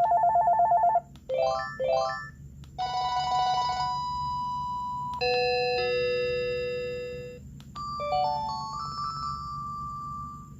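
Panasonic cordless phone handset playing previews of its built-in ringtones in turn: first a fast trilling electronic ring, then quick rising arpeggio beeps, then short electronic melody snippets with notes stepping upward near the end, each cut off as the next tone is selected.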